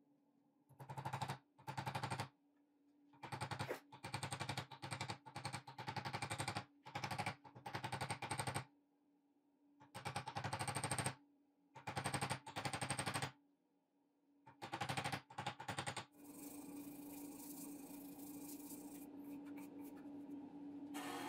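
Rapid bursts of hammer blows, metal on metal, about nine runs of quick strikes, as the restored steel hammer head is driven down onto its new wooden handle and a steel tube is struck to seat the top of the handle in the eye. From about 16 s a steady machine whir takes over.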